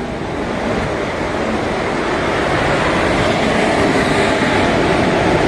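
WCAM3 electric locomotive and its coaches moving slowly past along the platform: a steady train rumble of wheels and running gear that grows gradually louder.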